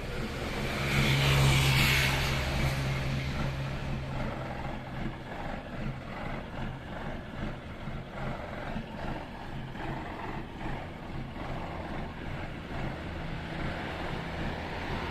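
Mitsubishi Fuso truck's diesel engine idling steadily, swelling louder for a moment between about one and three seconds in.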